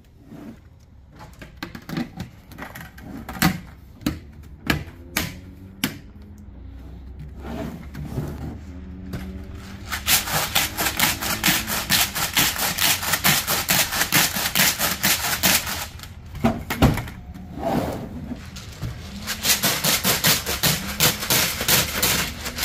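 A lidded container of soaking corn kernels and water being shaken hard, the corn rattling and sloshing in quick, even strokes. Scattered knocks and clicks come first; the shaking comes in two bouts, the second near the end.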